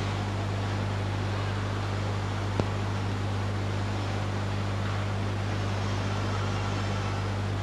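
Steady low electrical hum with a constant hiss from a microphone and sound system, with one short click about two and a half seconds in.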